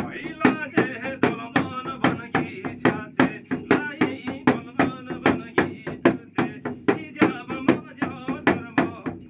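Shaman's frame drum beaten in a quick, steady beat, about four strokes a second, with a voice chanting over it.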